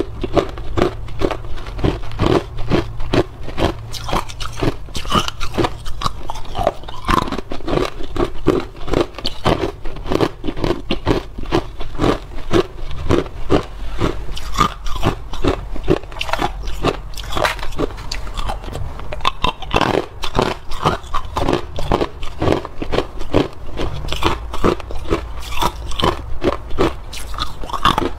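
Hard clear ice cubes being bitten and crunched between the teeth, heard close up: a steady, continuous run of sharp crunches as the ice breaks up in the mouth.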